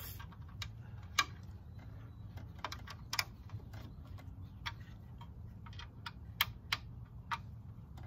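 Irregular small clicks and taps of hardware and wooden parts being worked into a teak chair frame by hand, with a sharper click about a second in.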